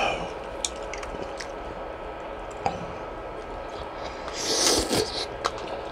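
Close-miked eating of fish-cake soup: a few small clicks, then about four and a half seconds in a louder wet mouthful of broth and fish cake lasting under a second, over a steady low hum.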